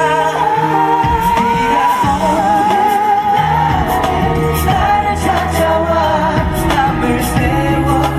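A male singer singing live into a handheld microphone over pop backing music with held bass notes and a steady drum beat.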